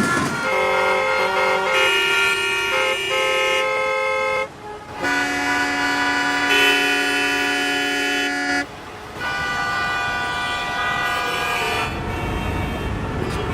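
Horn tones sounding in sustained chords of several pitches, three held chords each a few seconds long with short breaks between, followed by a low rumble near the end.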